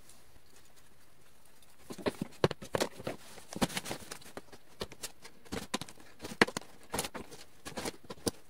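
Box cutter blade cutting through the plastic lid of a Sterilite storage tote: a string of irregular sharp cracks and clicks as the blade works through the plastic, starting about two seconds in.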